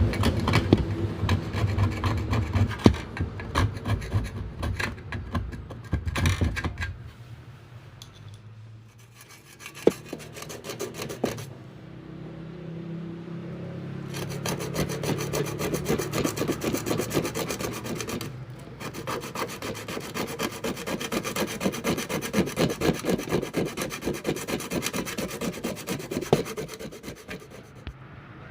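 Rapid rubbing and rasping strokes of an abrasive worked back and forth on a hard surface. The strokes come in long runs, with a quieter stretch in the middle.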